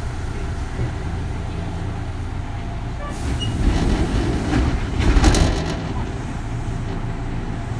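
Running sound heard inside a Kintetsu 3200 series electric train car: a steady low rumble of wheels on rail. It swells louder with clattering from about three and a half seconds in, peaks around five seconds, then settles back.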